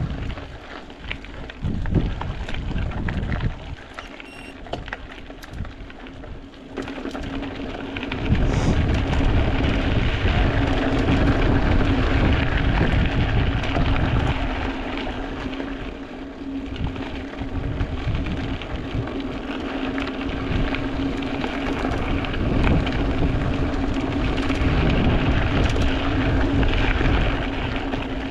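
Wind buffeting the microphone and tyre noise from a mountain bike being ridden, with a steady low hum underneath. It gets louder about eight seconds in.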